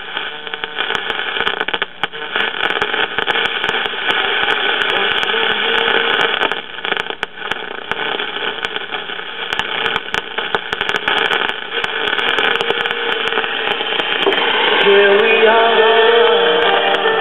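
A 1968 Zenith five-tube AM radio's speaker hisses with static and frequent crackling clicks as the dial is tuned across the band. Near the end a weak station's audio rises faintly out of the noise.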